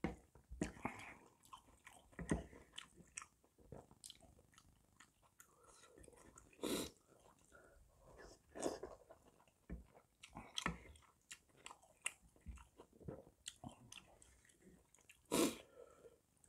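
Close-up mouth sounds of a person eating spicy beef-intestine hotpot with rice: irregular wet chewing, clicks and smacks, with two louder bursts, about seven and fifteen seconds in.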